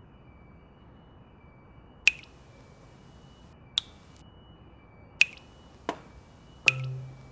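Cartoon sound effects: about six sharp clicks like finger snaps, spaced a second or so apart, over a faint high chirping that keeps repeating. A short low hum follows the last click near the end.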